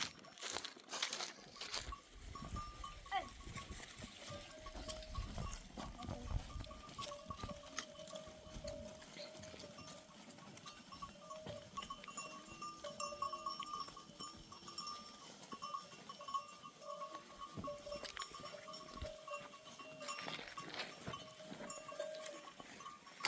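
Bells on a grazing flock of sheep and goats ringing on and off, with scattered clicks and an occasional bleat.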